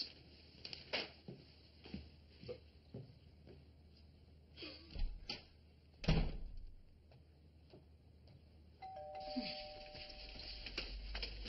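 Two-note doorbell chime, ding then dong, sounding about nine seconds in and ringing for about a second and a half. Before it come scattered light knocks and one heavy thud about six seconds in.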